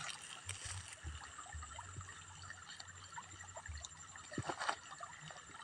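Faint, irregular small clicks and wet smacking of a cat chewing a roasted snakehead fish, with a short louder noise about four and a half seconds in.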